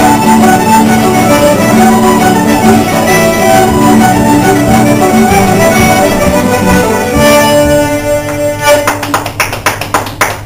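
Irish traditional session music: fiddle, accordion and guitars playing a tune together. Near the end the tune breaks off into a few sharp separate chords and dies away.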